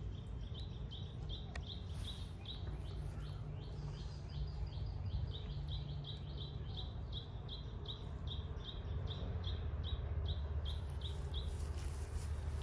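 A small animal's high chirp repeated about twice a second, keeping an even beat and stopping shortly before the end, over a steady low rumble.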